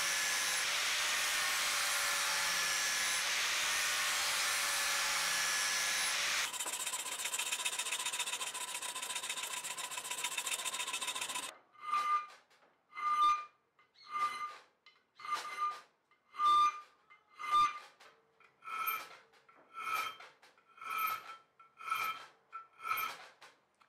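Angle grinder with a flap disc grinding the steel knife blade, then a quieter steady machine whir for about five seconds. About halfway through, a hand file is drawn across the leaf-spring steel blade clamped in a vise, about one stroke a second, and each stroke makes the blade ring.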